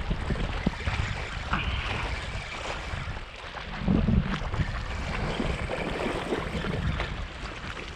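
Wind buffeting the microphone in a steady low rumble, with small wind-driven waves lapping against the lake's concrete bank.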